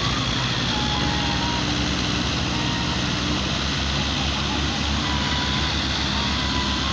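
Diesel engines of Belarus tractors running hard under heavy load, with a steady low rapid pulsing, as they strain to pull a loaded trolley stuck in mud.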